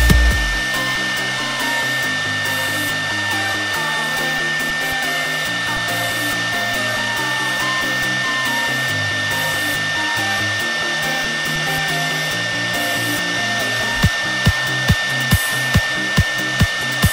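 CNC router spindle running steadily with a constant high whine as its engraving bit carves a relief in a wood panel. Electronic background music plays over it, and a steady kick-drum beat comes in near the end.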